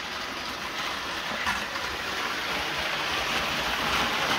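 Hornby Virgin 125 HST model train running at about half speed: a steady rushing hiss from its motor and wheels on the track, growing slowly louder toward the end as the train comes nearer.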